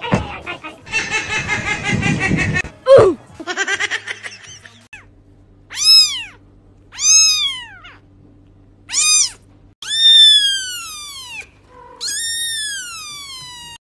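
A kitten meowing five times in high, rising-then-falling cries over the second half, the last two drawn out longer. Before that come a few seconds of a quavering, pulsing voice-like sound.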